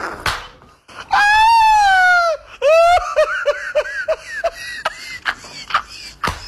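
A man laughing hard: a long high-pitched laugh held for over a second, falling at its end, then a run of quick ha-ha bursts at about four a second. A few sharp hand claps come near the start and again near the end.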